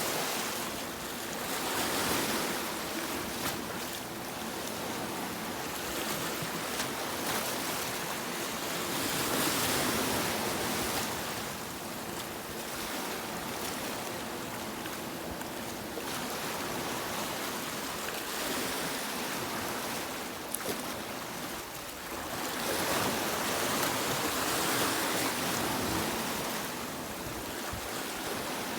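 Sea waves breaking and washing onto a beach, a steady rushing surf that swells and eases in slow surges, loudest about two, ten and twenty-four seconds in.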